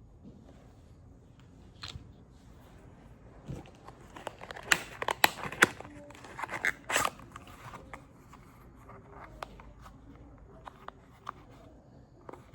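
Handling noises: a run of sharp clicks, taps and crinkles, densest and loudest about five to seven seconds in, then scattered light ticks.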